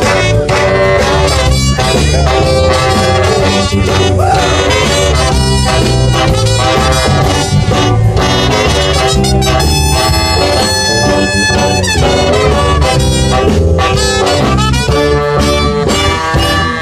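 Live Tejano big band playing: a horn section of saxophones, trombone and trumpet over electric guitar and a rhythm section keeping a steady beat.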